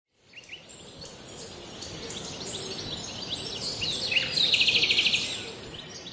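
Wild birds chirping and calling over a steady high hiss, fading in at the start; a fast trill of rapid repeated notes comes about four and a half seconds in.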